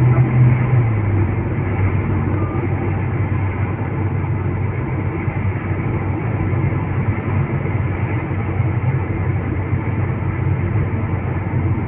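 Road vehicle running steadily, a constant rumble of engine and road noise. The low engine note drops slightly about a second in, then holds steady.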